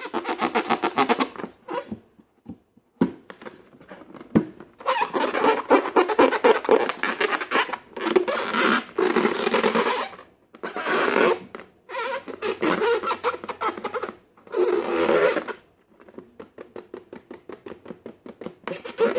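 Slime being squeezed and worked by hand, making sticky crackling squelches in runs of a second or two with short pauses between.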